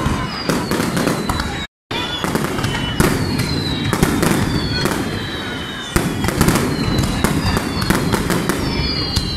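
Fireworks display: a dense run of bangs and crackling, with several high whistles sliding down in pitch. The sound drops out completely for an instant about two seconds in.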